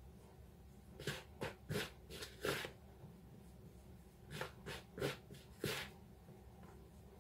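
Fingertips rubbing margarine into self-raising flour in a plastic mixing bowl: soft rustling strokes in two bursts of about four, the first about a second in, the second just past the middle.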